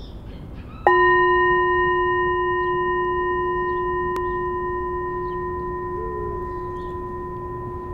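A singing bowl struck once about a second in, ringing with several steady tones at once that fade slowly.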